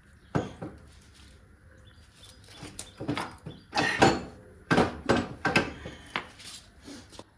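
A string of irregular knocks and clunks: one sharp knock just after the start, then a busy run of them from about two and a half seconds in. They come from the Bajaj Pulsar engine and parts being wrestled in the motorcycle frame while the engine is still held by a bracket.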